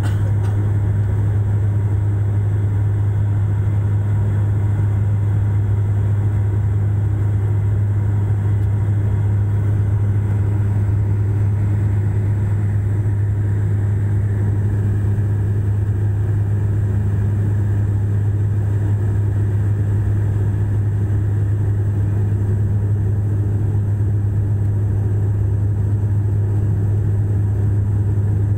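Steady drone of a Bombardier Q400 turboprop's engines and propellers inside the cabin: a loud, even hum with a strong deep tone, on approach with the landing gear down.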